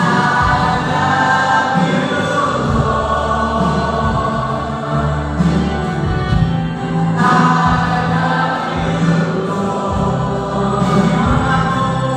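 Background Christian worship music: a choir singing a held melody over instrumental accompaniment with a steady bass.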